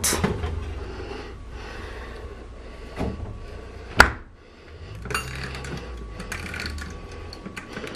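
Metal loaf pan sliding onto an oven rack with a click, then the oven door shutting with one sharp bang about four seconds in, the loudest sound. Light clicks follow as the oven controls are handled.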